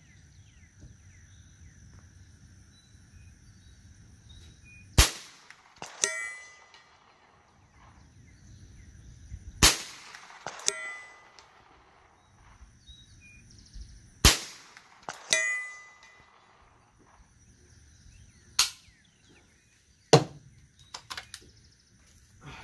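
Ruger 10/22 .22LR rifle shots: five sharp cracks several seconds apart, the last two closer together. After some of them, a fainter metallic clank with ringing follows about a second later, the steel gong being hit 300 yards downrange.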